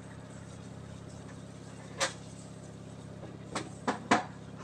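Sharp clacks of a plastic container being handled while fried boboloni doughnuts are coated in powdered sugar: one about two seconds in, then three quick ones near the end, the last the loudest. A steady low hum runs underneath.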